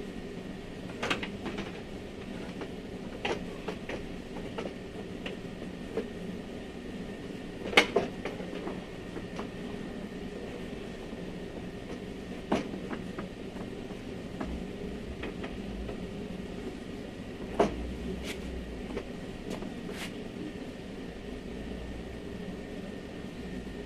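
Scattered clicks and knocks of metal parts and hands working inside a Fiat Doblo's front door cavity while a new window regulator is fitted. Three sharper knocks come about 8, 12 and 17 seconds in, over a steady background hum.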